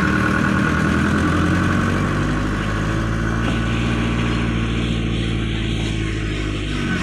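A vehicle engine running, its pitch wavering at first and then holding steady from about two seconds in.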